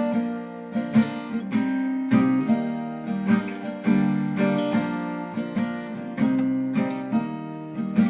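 Acoustic guitar strumming chords in a slow, even rhythm, with no singing over it.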